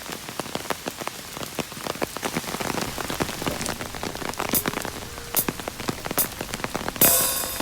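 Steady rain falling, with many separate heavy drops tapping close by at an uneven pace; a louder rush of hiss comes in near the end.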